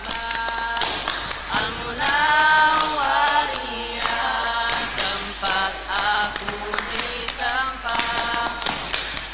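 A group of teenage boys singing a cappella in harmony, with rhythmic hand claps and taps keeping the beat.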